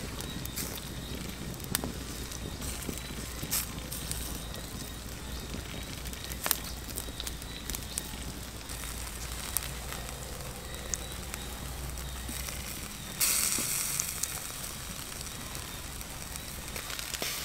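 Charcoal fire crackling under a whole fish grilling on a wire rack: a steady hiss with scattered sharp pops. A louder hiss of sizzling lasts just over a second about three-quarters of the way through.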